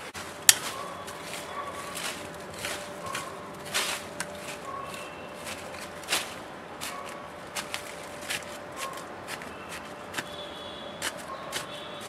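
Small metal garden trowel digging and scraping in soil: a string of short irregular scrapes and knocks, with one sharp click about half a second in.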